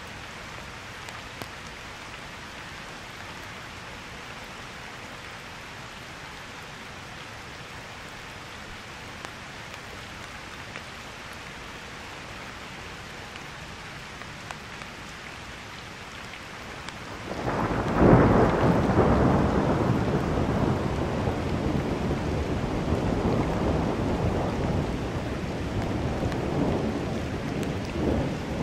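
Steady rain falling. A little past halfway a thunderclap breaks suddenly and loudly, then rolls on as a long rumble to the end, with the rain still heard under it.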